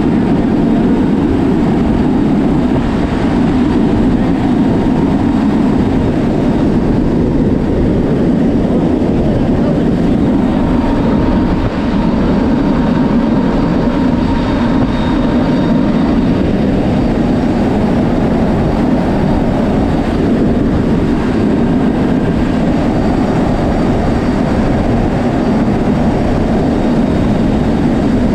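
Steady, loud roar of wind and turboprop engines in a C-130J Super Hercules flying with its rear cargo ramp open, with a faint steady tone from the engines laid over it.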